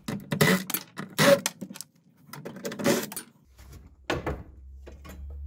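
Metal clinks and clatters of bolts and a small steel bracket being worked loose and lifted off under a Ford Festiva's dashboard, with several sharp strikes, the loudest about a second in.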